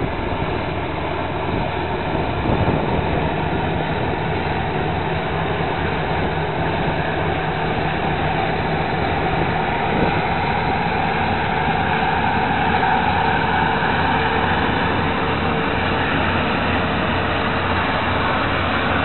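Deutz-Fahr M 2680 combine harvester running while it cuts grain, its diesel engine and threshing machinery making a steady heavy drone. The sound grows a little louder as the combine draws closer.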